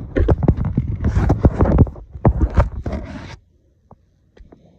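Scraping and rubbing handling noise, a gloved hand and jacket sleeve rubbing against the phone's microphone while the bike is ridden, in a rapid string of scratchy strokes. It cuts off suddenly about three and a half seconds in, leaving only a few faint clicks.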